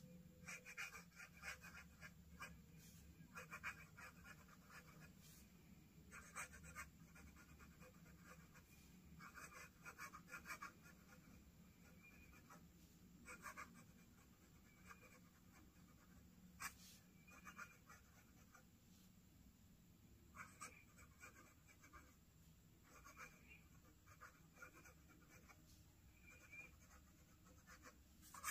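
Fountain pen with a Jowo #6 medium steel nib writing cursive on paper: faint scratching of the nib in runs of strokes, with short pauses between words.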